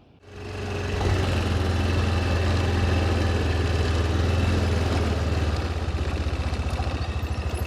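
Vehicle engine running steadily, then from about five and a half seconds in settling into a slower, evenly pulsing idle.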